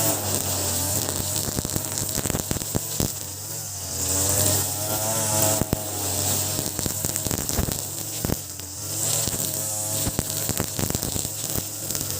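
Small 33cc two-stroke brush cutter engine, fitted with an oversized 43cc carburettor, running with its revs wavering, and scattered clicks throughout.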